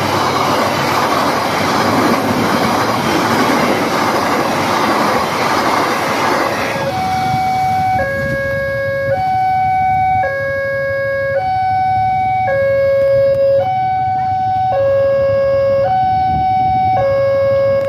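A passenger train running past with a steady rush of wheel-on-rail noise. About seven seconds in it gives way to a level-crossing warning alarm: two electronic tones alternating high and low, each held about a second.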